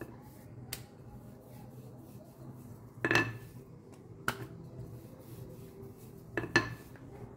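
Rissois dough being rolled out with a rolling pin on a board: quiet rolling with a handful of sharp wooden knocks as the pin meets the board, the loudest a little after three seconds and again near the end.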